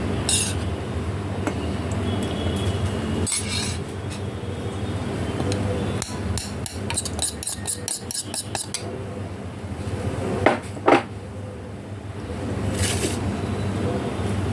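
Metal kitchen utensils clinking against cookware: scattered clinks, then a quick run of light taps about five a second, and two louder ringing knocks about two-thirds of the way through. A steady low hum runs underneath.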